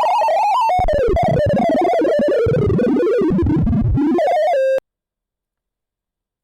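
Sorting-algorithm sonification: a fast, dense stream of synthesised beeps whose pitch follows the values being compared, skittering up and down as the array is sorted. It ends about four and a half seconds in with a short steady tone, then cuts to silence as the sort finishes.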